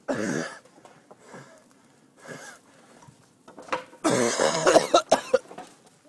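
A man coughing in fits: a hard cough at the start, a few weaker ones, then a longer, louder bout of coughing about four seconds in.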